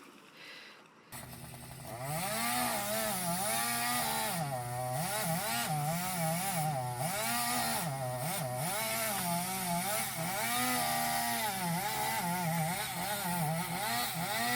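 Chainsaw cutting wood, starting about a second in, its engine pitch rising and dropping over and over as it is throttled and loaded in the cut.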